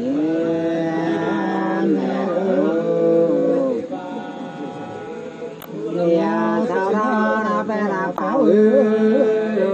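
Two women singing sli, the Nùng people's unaccompanied two-part folk song, in long held, slowly gliding notes. The singing drops softer for a couple of seconds around the middle, then swells again.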